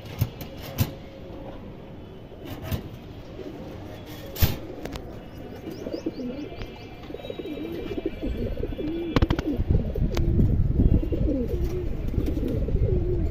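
Domestic pigeons cooing, with a few sharp clicks in the first half; the cooing comes thicker and louder in the second half over a low rumble.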